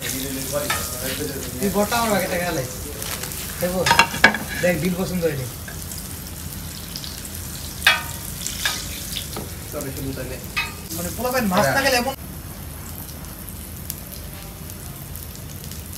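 Hot oil sizzling steadily, with a few sharp clicks and brief bits of voices over it.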